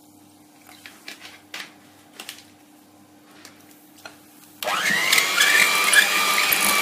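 A few soft clicks and taps, then about two-thirds of the way in an electric hand mixer switches on, its whine rising quickly and holding steady as the beaters churn thick chocolate cake batter.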